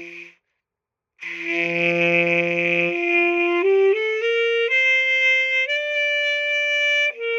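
Alto saxophone playing long held notes. A note cuts off near the start, and after a brief pause the notes climb step by step, played with the rounded O-shaped embouchure meant to give a good tone.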